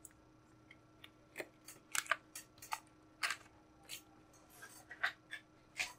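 Plastic action figures being picked up off a display stage by hand: a string of light, irregular clicks and taps as the figures are handled and lifted.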